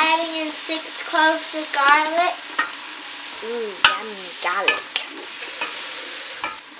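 Diced onion, carrots and bell pepper sizzling in butter and olive oil in a stock pot as a wooden spoon stirs them. A few short pitched sounds that rise and fall come over the sizzle.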